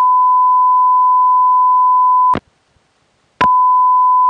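Loud steady tone from a telephone company test number (exchange prefix plus 9900) heard over a phone line. It clicks off a little over two seconds in, stays silent for about a second, then clicks back on.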